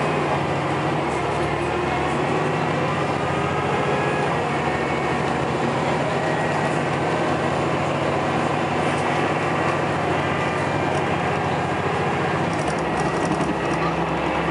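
Scania L94UB single-deck bus heard from inside the saloon while under way: the diesel engine runs steadily, with a faint whine from its ZF automatic gearbox climbing slowly in pitch as the bus gathers speed.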